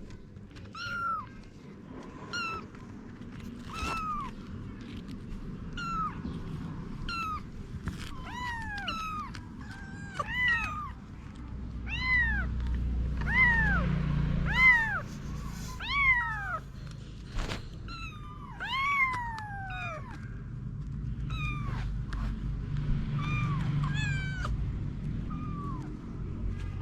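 Kittens mewing over and over: short, high-pitched cries that fall in pitch, about one a second, some overlapping.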